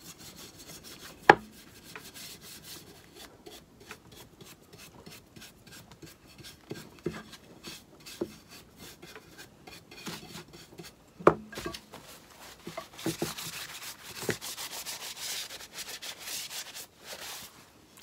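Stiff bristle wax brush scrubbing wax onto a painted wooden stake in quick, short rubbing strokes, with two sharp knocks about a second in and about eleven seconds in. Near the end the rubbing turns hissier for a few seconds.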